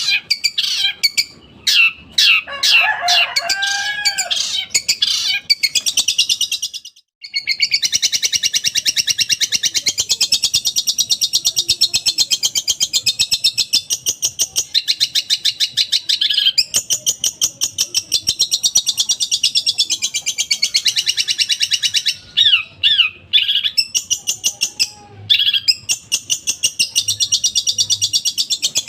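Long-tailed shrike (cendet) singing. Quick varied calls and a lower hooked whistle open the song, then it runs into long stretches of very fast, rapid-fire chattering notes. Near the end it breaks into short calls with gaps.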